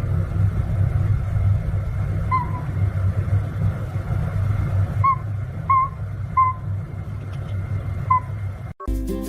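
Five short, high-pitched animal calls over a steady low rumble, like the inside of a moving car.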